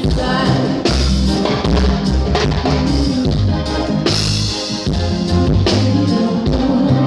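Live reggae band playing through a stage sound system during a sound check: drum kit with kick and rimshot hits over a heavy bass line and other instruments.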